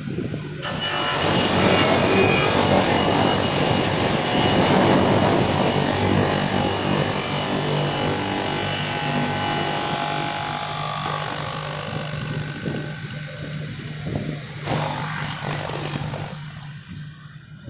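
Single-head aluminium cutting saw with a 420 mm blade and 3 kW motor, running at speed with a high steady whine over dense machine noise. It starts suddenly about a second in, swells again near the end, then dies away.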